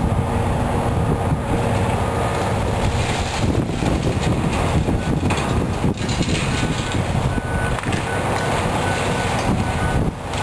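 Heavy wind buffeting the microphone over a hydraulic excavator at work demolishing a building. A faint, broken high beeping comes in during the last few seconds.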